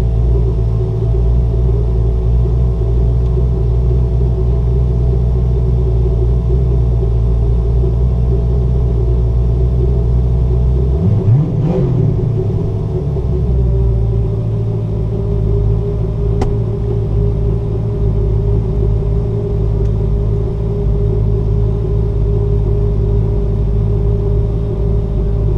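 Car engine with a rear-mounted turbo idling steadily while the car stands still, with one short blip of revs that rises and falls about halfway through, after which the idle settles on a slightly different note.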